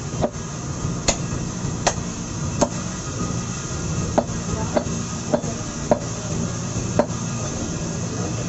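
Butcher's knife striking a wooden log chopping block as beef is cut: about nine sharp knocks at irregular intervals of roughly a second, over a steady low background hum.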